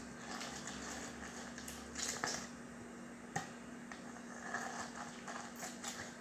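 Lemon halves being twisted and pressed by hand on a citrus reamer: irregular bursts of rubbing and squeezing, with a few sharp clicks about two and three and a half seconds in, over a steady low hum.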